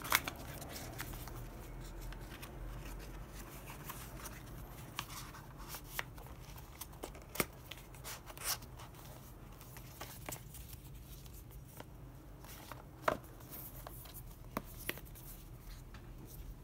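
Hands handling a rigid cardboard pen gift box, fitting the insert and closing the lid: scattered light clicks and taps of cardboard, the sharpest near the start and about two-thirds of the way through, over a low steady hum.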